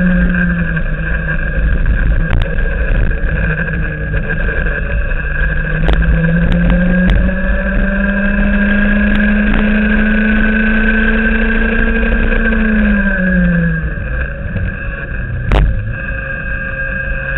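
Racing kart engine at full throttle: its pitch climbs about five seconds in and holds high along the straight, then drops away around thirteen seconds in as the kart lifts off and slows, and rises again near the end. A single sharp knock comes about fifteen and a half seconds in.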